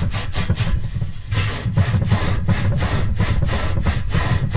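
Scotch-Brite abrasive pad scrubbed rapidly back and forth over the end of a metal exhaust pipe, about four strokes a second, with a brief pause about a second in. The pipe is being cleaned of debris before sealant is applied.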